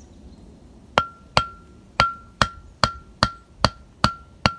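Hammer blows with a short metallic ring, nine strikes in a steady rhythm of about two and a half a second, starting about a second in.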